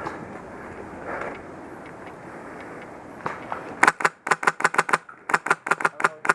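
Footsteps and rustling of someone moving over ground, then, about four seconds in, two rapid bursts from an HPA (Polarstar-engine) airsoft rifle, sharp shots at about eight a second with a brief pause between the bursts.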